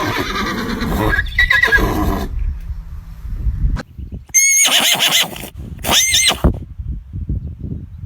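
Horse neighing: about two seconds of loud, rough sound, then two short, high, wavering whinnies about four and a half and six seconds in.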